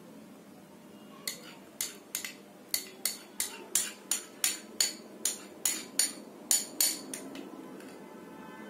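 Metal spoon clinking and scraping against a glass bowl, about sixteen sharp clicks two to three a second, as yogurt is scooped out. The clinking stops about a second before the end.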